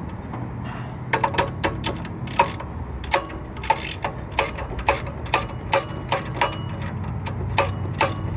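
Hand socket ratchet clicking in short, uneven strokes as it works on a bolt of a truck's alternator mounting during alternator removal.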